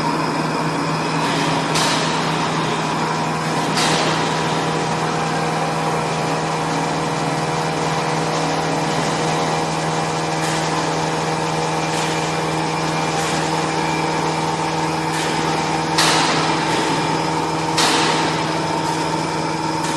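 CNC vertical machining center running: a steady motor hum and whine made of several fixed tones, which gains extra mid-pitched tones about six seconds in. Four short, sharp mechanical noises cut in, two near the start and two near the end.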